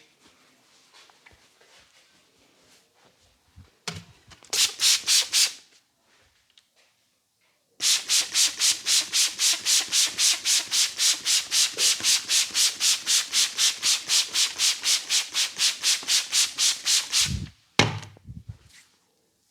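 Hands rubbing briskly back and forth over a person's scalp and hair during a head massage, with a rapid, even rasping at about five strokes a second. A short burst comes first, then a long run of about ten seconds, followed by a couple of dull thumps.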